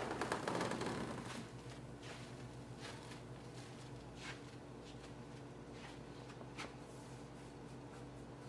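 A short rustle of fabric at the start, then slow, soft footsteps on a floor, one every second or so, over a steady low room hum.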